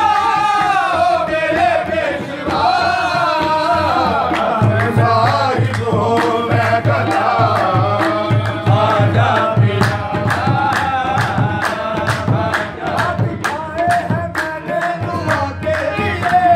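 Qawwali music: several male voices singing over two harmoniums, with hand drums and hand-clapping. A strong, steady drum beat comes in about four and a half seconds in.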